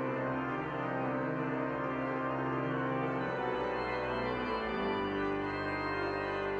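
Organ playing slow, held chords, the notes changing a few times, as a closing voluntary at the end of a church service.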